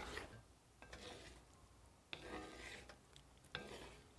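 Faint stirring: a wooden spatula scraping and turning chicken and vegetables in a wok, in several soft strokes.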